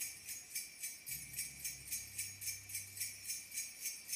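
Background music with a steady, evenly spaced high percussion beat, about three to four strokes a second, and a low bass tone coming in about a second in.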